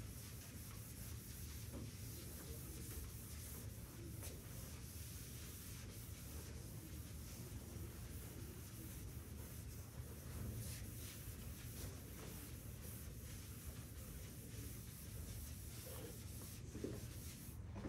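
Chalkboard eraser wiping chalk off a chalkboard in faint, repeated rubbing strokes, over a steady low room hum.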